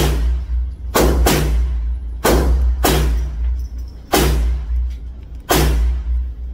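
Gunshots from other shooters at an indoor range, about seven loud reports at irregular intervals, each with a short reverberant tail and a deep boom.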